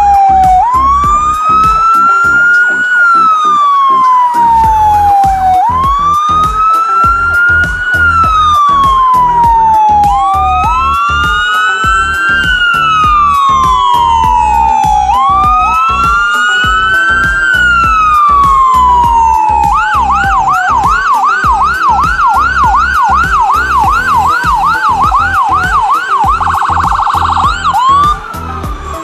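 Fire truck sirens, very loud, wailing up and down about every five seconds, with a second siren overlapping a little behind the first. About two-thirds of the way through they switch to a fast yelp, with a brief rapid warble near the end.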